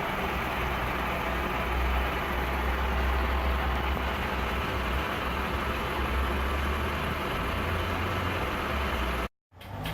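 Steady running of a machine: a continuous low rumble with an even hiss over it, which cuts off abruptly near the end.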